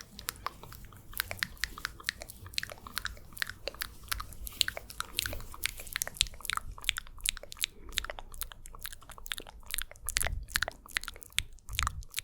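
Close-miked wet mouth sounds: a dense run of lip and tongue clicks and smacks, several a second.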